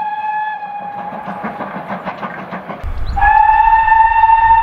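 A steam locomotive's whistle ends about a second in, followed by quick rhythmic exhaust chuffs as the engine works. About three seconds in, a second locomotive whistle starts, louder and held steady.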